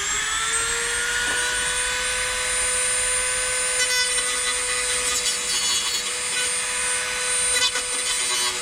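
Dremel rotary tool running at full speed with a steady high whine, settling in pitch during the first second after spin-up. It grinds the sharp edge off a freshly drilled hole in sheet-metal car body, with brief rasps as the bit bites the metal a few times.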